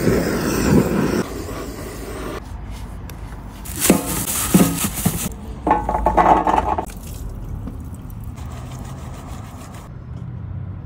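A gas torch's flame burning loudly for about a second. Then come rustling and scraping as blocks of butter slide out of a plastic bag into a steel pan, with a short steady whine in the middle.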